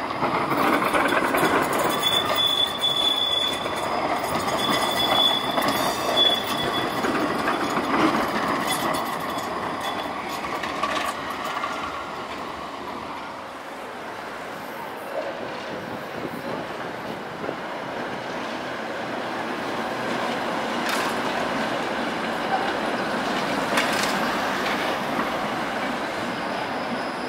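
Electric street trams rolling by on city tracks: a modern Škoda ForCity tram passes with two brief high-pitched wheel squeals in the first few seconds, then older Tatra trams go by with steady rolling noise and a few sharp clicks from the rails.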